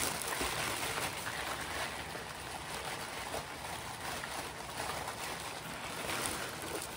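Tissue paper rustling and crinkling as it is unwrapped by hand, a steady, uneven rustle throughout.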